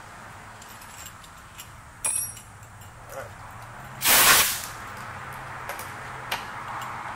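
Milling machine running with a steady low hum. A metallic clink comes about two seconds in, and a short loud hiss of air comes about four seconds in.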